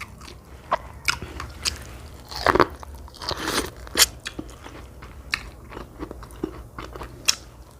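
Close-miked eating: biting into corn on the cob and chewing, with short crunches and wet mouth clicks. The louder crunching is a little over two seconds in and again around three and a half seconds.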